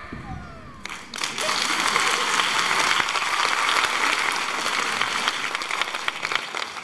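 Dance music dies away, and about a second in an audience breaks into steady applause.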